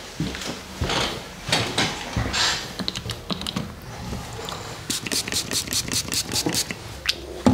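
Handling noises from barber products: light rustles and knocks, then a quick run of sharp clicks, several a second, from about five seconds in, as a small product bottle is worked over the hand.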